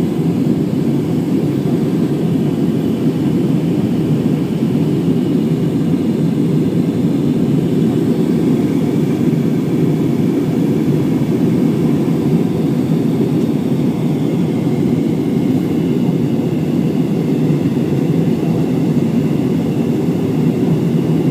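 Airbus A320 jet engines running at a steady, unchanging level, a dense low rumble with a faint high whine above it, as heard inside the aircraft in flight.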